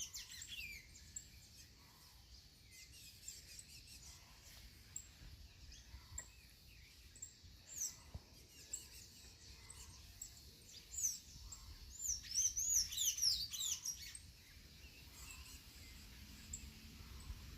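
Birds chirping: quick, high, sweeping notes, scattered at first and coming thickest from about eleven to fourteen seconds in.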